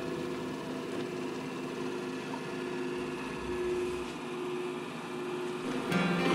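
Soft background music with sustained notes, getting louder near the end.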